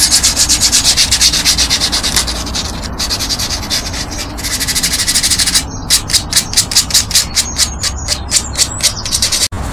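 Oak trim sanded by hand with quick back-and-forth strokes, about four or five a second. Over the last few seconds the strokes become short and separate.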